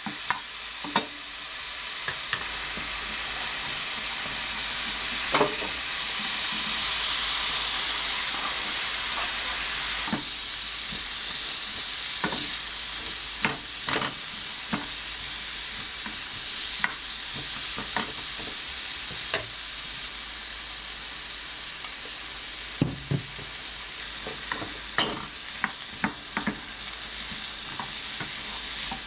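Food sizzling in a hot frying pan, a steady hiss, with scattered taps and scrapes of a utensil stirring against the pan.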